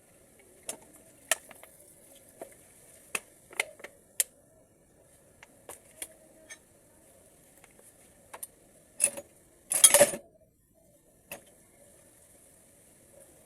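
Small metal parts of a transmission valve body clicking and clinking as they are handled and cleaned: separate light ticks every second or so, with a louder, denser clatter about ten seconds in.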